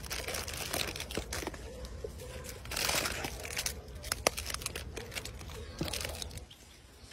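Plastic snack wrappers crinkling and rustling as a macaque rummages in a cardboard box of packets and grabs them, loudest about three seconds in.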